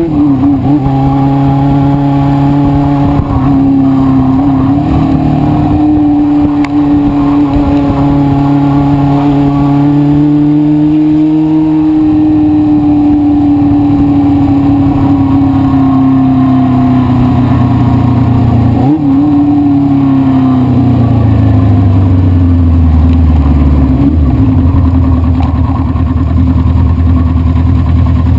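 1973 Honda CB500 Four's air-cooled inline-four engine running at steady revs, then falling steadily in pitch over the last several seconds as the revs drop.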